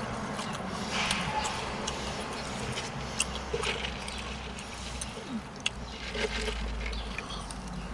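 Close-up chewing of a fried chicken tender, with wet mouth smacks and small clicks at uneven intervals.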